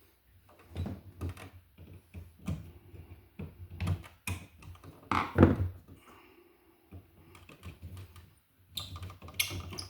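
Small irregular clicks, taps and knocks of hand work on a wall receptacle, a screwdriver turning its terminal screws down on the wires, with one louder knock about halfway through.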